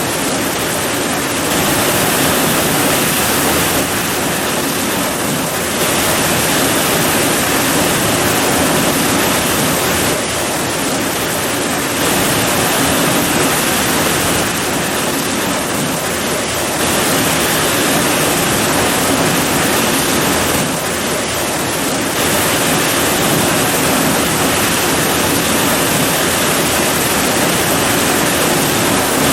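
Heavy rain pouring steadily, a dense even hiss that swells and eases slightly every few seconds.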